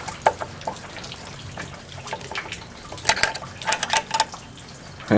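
Scattered light metallic clicks and knocks of the scooter's variator bushing being worked onto the variator shaft, where it sticks and will not slide on, with a quicker run of clicks about three to four seconds in.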